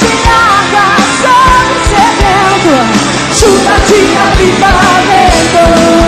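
Live worship band playing a song with a woman singing lead into a microphone, over a steady drum beat with cymbals.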